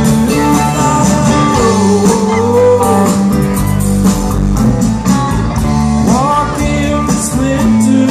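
Live rock band playing, with electric guitars, bass guitar and drums, and a melody line that slides and bends in pitch over a steady low end.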